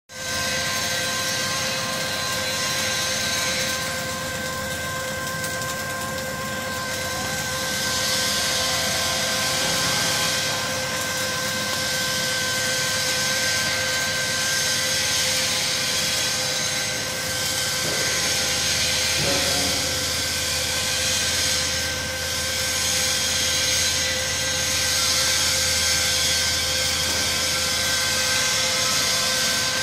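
Wire feeder of a flux-cored arc welding machine running, its drive rolls feeding wire off the spool: a steady motor whine over a hiss that swells and fades every few seconds.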